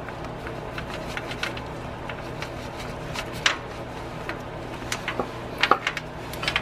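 Open-end wrench clicking and scraping on the 12 mm bolts of a Honda 3.5L V6's hydraulic timing-belt tensioner as they are turned out, the bolts free of any torque: a run of light metal clicks, with a few sharper ones in the second half, over a steady low hum.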